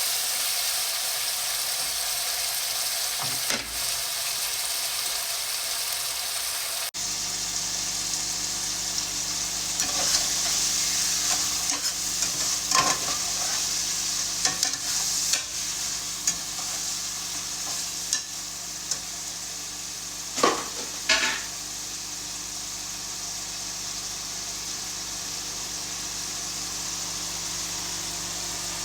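Food frying and sizzling in a pan, a steady hiss, with a few short scrapes and knocks of a utensil stirring it.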